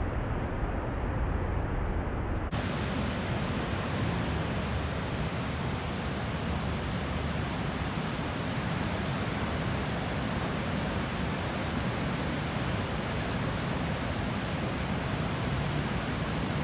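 Niagara Falls' water rushing: a steady, even wash of noise. About two and a half seconds in it cuts to another take with more hiss.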